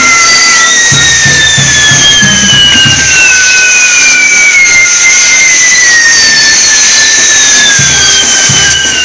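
Fireworks castillo burning: fire fountains and spinning pieces hissing loudly with a constant high whine and long whistles that slide slowly down in pitch. Music with a steady drum beat sounds underneath for the first few seconds, drops out, and returns near the end.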